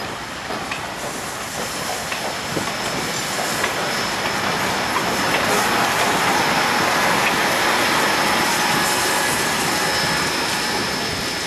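Ty42-class steam locomotive rolling slowly past at close range: a dense hiss and rumble of steam and running gear that grows louder as it draws level, with a thin high squeal over it.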